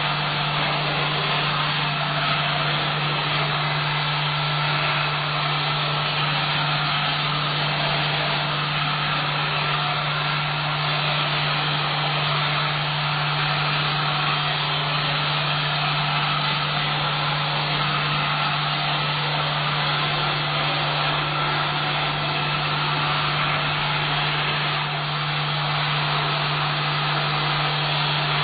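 Vacuum cleaner running steadily: an even rush of air over a constant low motor hum, with no change in speed.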